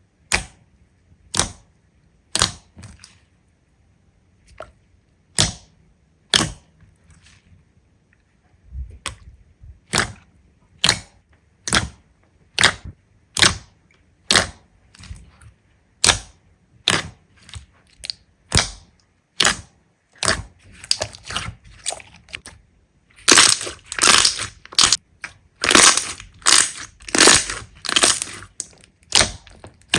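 Slime being pressed and squeezed, giving sharp pops and crackles about once a second at first, which come faster and become dense crackling in the last few seconds.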